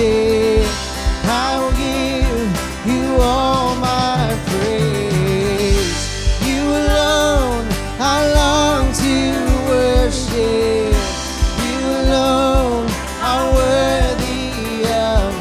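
Contemporary Christian worship music: a band plays under a vocalist singing long held notes with vibrato.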